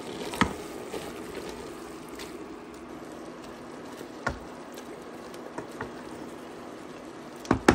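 Mutton with onions, tomatoes and coriander sizzling steadily in a steel pot, with a few sharp knocks of the wooden stirring spoon against the pot, the loudest two close together near the end.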